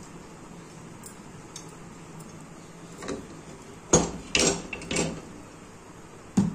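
Kitchen utensils and pots being handled: a few sharp clinks and knocks over a faint steady background, starting about three seconds in, the loudest about four seconds in.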